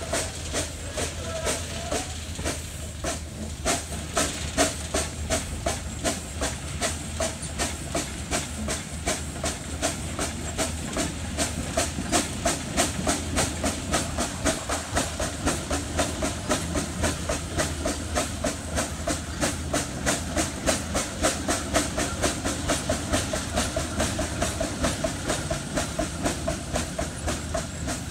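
Minneapolis steam traction engine running, its exhaust chuffing in a steady rhythm of about three beats a second over a low hiss and hum of steam.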